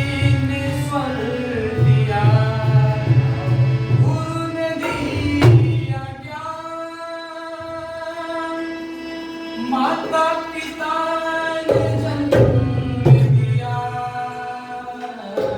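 Music: a Hindi song with a singing voice, tabla and held instrumental notes. The tabla drops out from about six seconds in to nearly twelve seconds, leaving the held notes and the voice.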